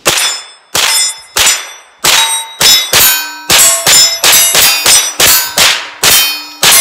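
A Foxtrot Mike 9mm rifle firing a long string of rapid shots at steel plate targets. The shots are spaced out at first and come faster from about three seconds in, and the plates ring after the hits.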